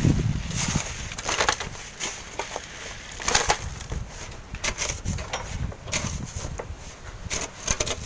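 Irregular crunches and knocks of steel wheelbarrows and rubber boots moving over gravelly sand, with no engine running.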